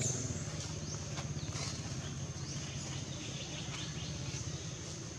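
Outdoor ambience: a steady low hum, a steady high insect drone, and a dozen or so short, high, falling chirps scattered throughout.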